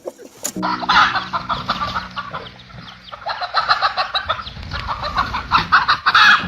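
Chickens clucking in quick, overlapping runs of short calls.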